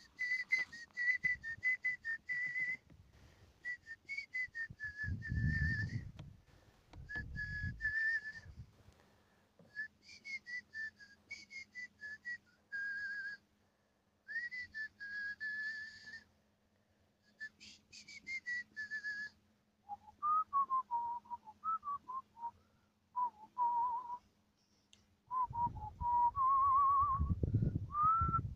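A person whistling a slow tune, one clear tone holding notes with small slides, moving to a lower register for the last third. Low rumbling comes in twice, about five seconds in and again near the end.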